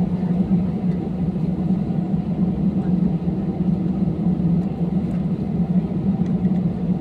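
Steady low drone of a passenger airliner's engines heard from inside the cabin, holding an even pitch and level.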